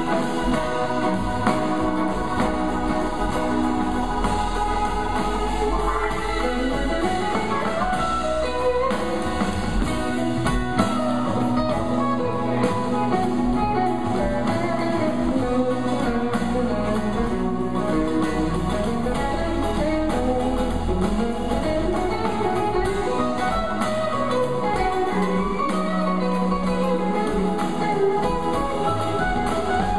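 Electric band playing an instrumental blues jam: a lead electric guitar, played through a Two-Rock Classic Reverb amplifier, solos with bent, gliding notes over bass and a drum kit.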